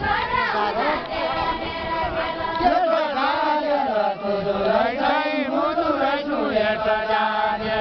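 Group of men singing a deuda song in chant-like unison, voices holding and sliding between notes with no instruments.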